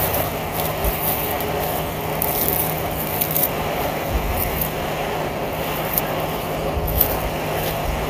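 Cheap plastic electric space heater running on 240 volts, twice its rated voltage, its fan blowing with a steady whir and a low hum. Irregular low rumbles of wind hit the microphone.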